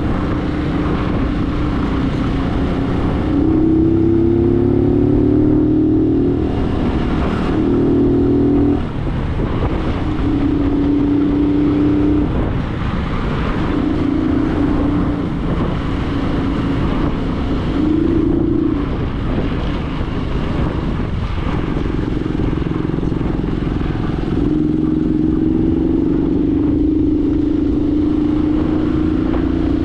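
A road vehicle's engine running while under way, its pitch climbing in short stretches and dropping back several times.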